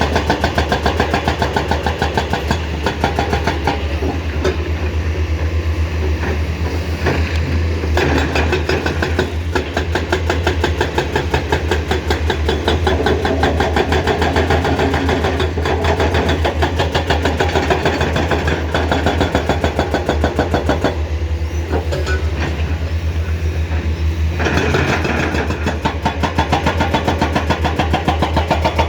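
Komatsu PC210 excavator's diesel engine running under working load with a fast, even pulsing beat. Its note swells and eases as the machine works, dropping back for a few seconds about two-thirds of the way through before picking up again.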